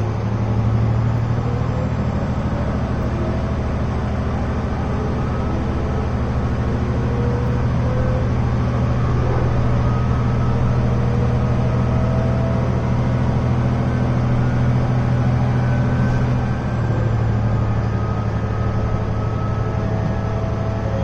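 Diesel railcar engine running under power, heard from inside the passenger cabin: a steady low drone with a faint whine that slowly rises in pitch as the train gathers speed. About sixteen seconds in, the engine note drops a little and changes.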